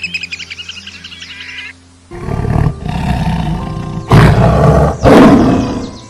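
A sparrow's rapid high chirping, fading out by about two seconds in. Then a lion growls and roars, with two loud roars about four and five seconds in. Steady background music runs underneath.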